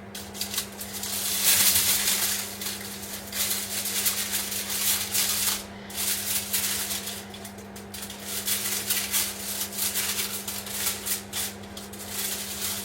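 Food frying in hot oil, a steady crackling sizzle that swells and eases, over a constant low hum.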